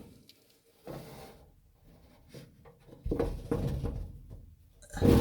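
Irregular rubbing, scraping and light knocking from handling inside a furnace cabinet, with a brief burst about a second in and a longer, louder stretch of rubbing about three seconds in.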